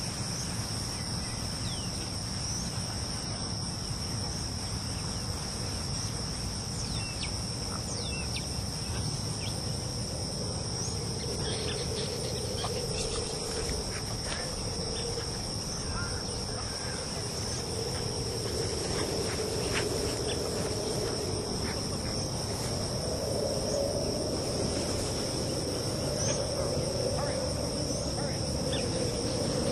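Insects trilling steadily in two high-pitched bands, over a low steady rumble, with a few brief chirps.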